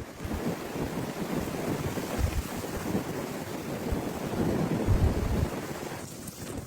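Blizzard wind rushing and gusting, with gusts buffeting the microphone in low rumbles; the strongest gust comes about five seconds in.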